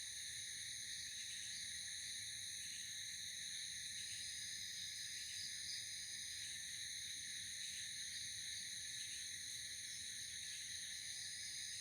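Night insect chorus of crickets, a steady, continuous high-pitched trilling in several layered pitches that never lets up.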